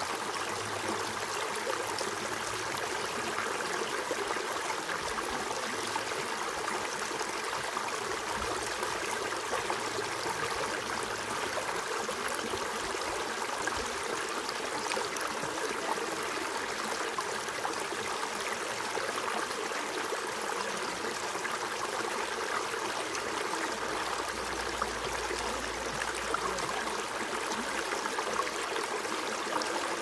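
A shallow, rocky creek running over stones in small riffles: a steady rush of flowing water that stays even throughout.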